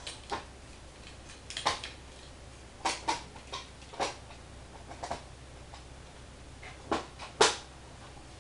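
Irregular light taps and clicks of a cat playing with a plastic drinking straw, batting it about on a hard surface, with the loudest tap near the end.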